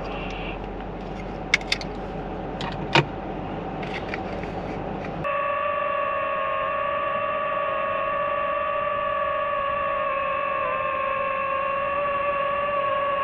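Steady hum inside a car cabin with a few sharp clicks. About five seconds in, it cuts to a held synth chord under an intro title.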